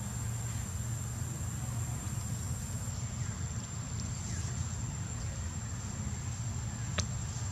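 Steady outdoor background noise: a low rumble with a thin, high, steady whine above it, and one sharp click near the end.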